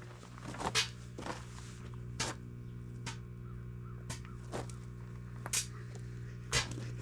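Microwave oven running with a steady low electrical hum, while several short, sharp clicks and taps come at irregular moments.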